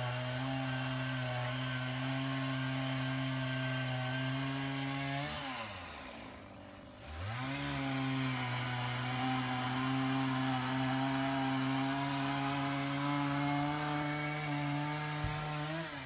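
A steady, pitched motor-like drone. About five seconds in it winds down in pitch and drops out, then winds back up about two seconds later; near the end it rises briefly and falls away.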